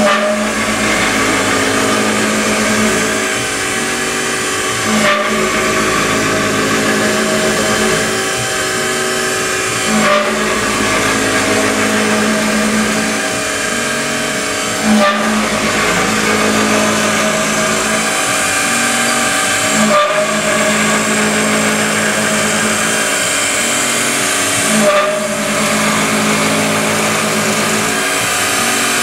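Small Syil X3 CNC mill running, its spindle whining steadily as a 6 mm end mill rough-cuts a pocket in aluminium under coolant spray, with brief changes in the sound about every five seconds.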